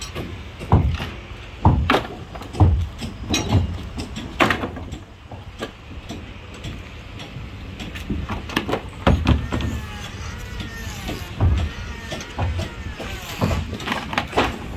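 Irregular heavy knocks and thuds of hand tools striking wood as the hold of a wooden fishing boat is torn out. There are about five blows in the first few seconds, a short lull, then more from about nine seconds on.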